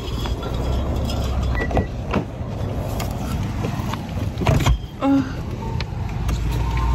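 Steady low rumble of a Kia Optima's engine and road noise heard inside the cabin while driving, with a few sharp knocks, the loudest about halfway through.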